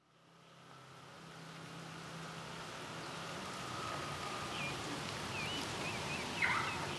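Outdoor street ambience fading in from silence: a steady hiss of distant traffic with a low hum, and a few short bird chirps about two-thirds of the way in.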